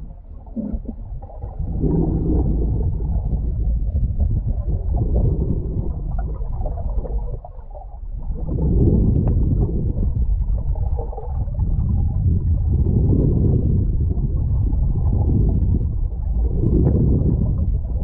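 Muffled low rumble and gurgle of water rushing past a GoPro in its waterproof housing as it is towed underwater, swelling and fading in waves, with a brief lull about seven and a half seconds in.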